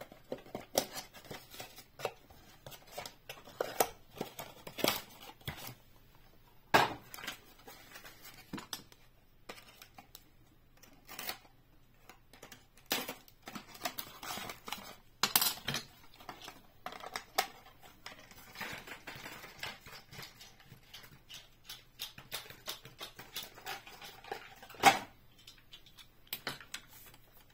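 A cardboard toy box and its packaging insert being handled and opened by hand: irregular rustling, scraping and sharp clicks. The loudest snaps come about 7, 15 and 25 seconds in.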